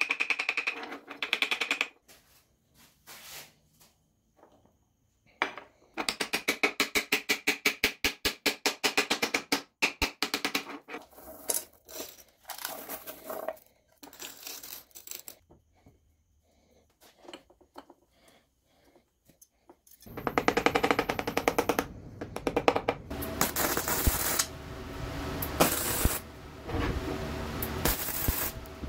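Steel ball bearings rattling and clinking against a steel bowl as they are shaken and handled, with a run of rapid, even clicks. About twenty seconds in, a welding arc starts crackling steadily and louder to the end.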